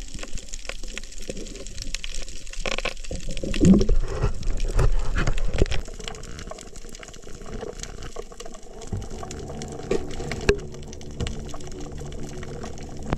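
Water sloshing and bubbling against an underwater camera housing, with scattered knocks and rustles, loudest from about three and a half to six seconds in, then settling down.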